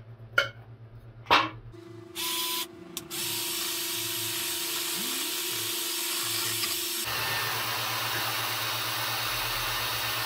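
A couple of knocks, then a power drill with a paddle mixer stirring paint primer in its can. The drill runs with a steady whine, stops briefly about a second after starting, and runs on. About seven seconds in it changes to a rougher churning noise without the whine.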